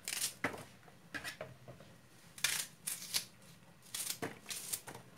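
Pieces of raw onion dropped and pushed by hand into a clear plastic food-processor bowl: irregular light knocks and papery rustles of onion skin against plastic. The chopper's motor is not running.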